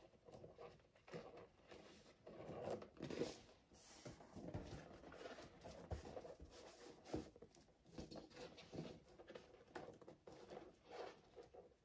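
Faint, irregular rubbing, rustling and light knocks of latex balloons being handled and fitted into a balloon garland strip.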